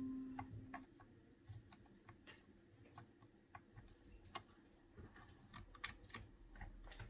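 Faint, irregular light clicks and taps of a metal spatula against the tablet's thin metal frame as the bent lip is gently worked straight, with a ringing tone dying away in the first second.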